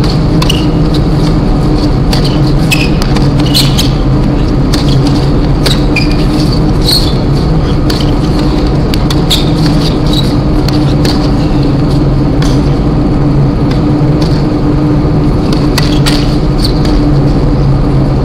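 Tennis rally on a hard court: irregular sharp strikes of racket on ball, with short high sneaker squeaks as the players move. Under it runs a loud steady low hum.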